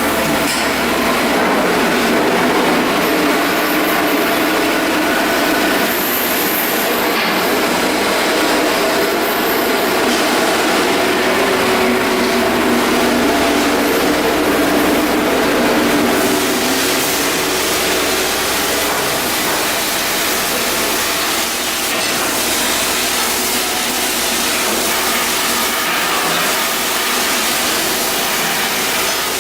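Steady, loud industrial noise of shipbuilding work on hull blocks, with no single machine standing out.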